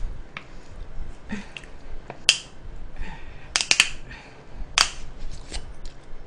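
Screw cap being twisted off a bottle of coffee: a handful of sharp clicks as the cap turns and its seal breaks, with a quick cluster of them in the middle.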